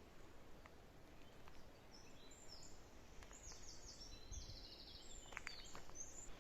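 Faint songbird singing: a run of high chirping notes and a rapid trill in the second half. A few soft clicks come near the end.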